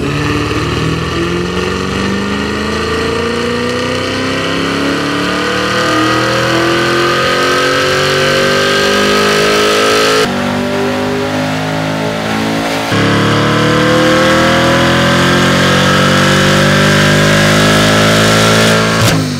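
2016 Camaro SS 6.2-litre V8 revving hard under load on a chassis dyno through a 3-inch cat-back exhaust with an X-pipe and straight-through MWA mufflers. The revs climb steadily, break suddenly about ten seconds in, then climb again and cut off near the end.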